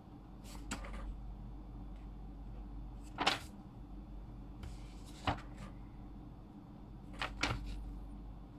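Several short clicks and rustles of paper and pen being handled on a desk, spaced a second or two apart, over a low steady hum.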